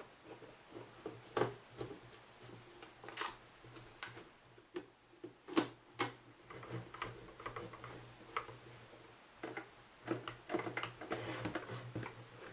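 Irregular light clicks and taps of a Phillips screwdriver backing screws out of a plastic radio-telephone case, with the case knocking now and then as it is turned and handled.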